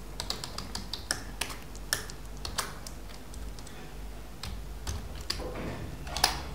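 Typing on a computer keyboard: irregular key clicks, thickest in the first couple of seconds, with a louder keystroke near the end.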